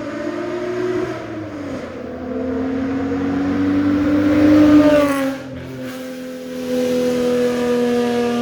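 1985 Toyota Cressida's exhaust, with OBX headers, the stock catalytic converter and a 2.5-inch pipe, pulling under acceleration: the note climbs, dips at a gear change about a second and a half in, then climbs again to its loudest near five seconds. It drops off sharply and settles into a steady, slowly falling drone.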